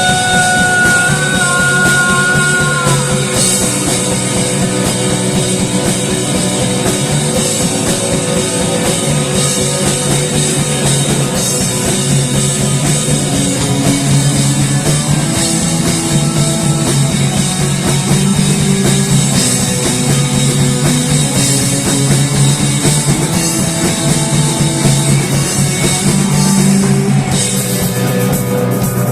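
Instrumental rock music with drum kit and guitar, one sustained high note sliding down about three seconds in.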